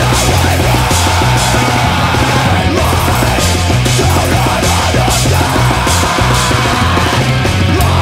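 Loud hard rock song with a driving, repeating bass line and steady drums with cymbal hits.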